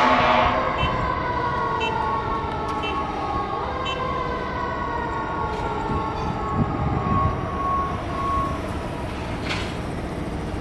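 Fire engine's mechanical siren winding down, its pitch falling slowly as the rotor coasts, after a loud blast right at the start.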